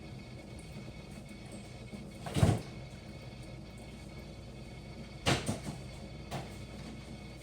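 Two loud knocks about three seconds apart, the second followed by a few lighter taps, over a steady low hum.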